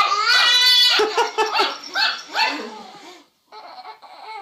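A dog vocalizing, as if talking back: one long pitched call, then several shorter ones, growing fainter near the end.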